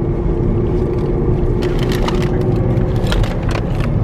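Low road and engine rumble inside a car's cabin, with a steady hum. A few short, sharp crackles come between about one and a half and three and a half seconds in.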